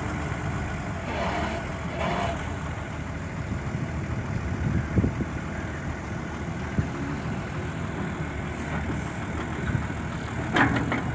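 Volvo EW145B wheeled excavator's diesel engine running steadily while the boom lowers the bucket, with a few short sharp knocks, the loudest about five seconds in.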